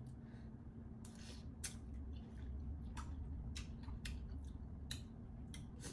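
Scattered soft clicks and crisp crackles of a spoon stirring and scraping through pounded apple salad in a glass bowl, over a steady low hum.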